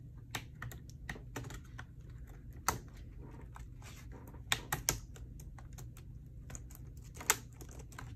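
Replacement HP 15 laptop keyboard clicking as hands press down across its keys to seat it in the palm rest: irregular sharp clicks and snaps, a quick cluster about halfway through and the loudest single click near the end.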